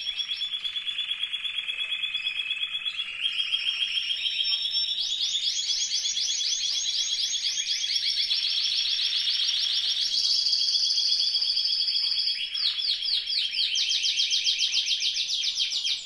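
Timbrado español canary singing without pause: a string of rapid, quickly repeated rolling notes that steps to a new pitch every second or two, climbing higher about a third of the way in.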